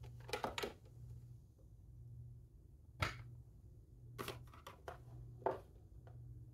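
Tarot cards being handled on a table: a few soft card shuffles in the first second, then scattered sharp taps and slides of cards, the sharpest about three seconds in, over a faint steady low hum.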